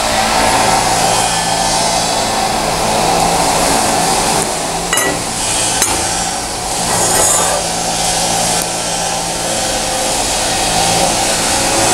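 TIG welding arc on a steel-to-stainless steel tube joint, hissing and buzzing steadily. Around the middle the arc briefly stops, with a couple of small clicks, then strikes up again.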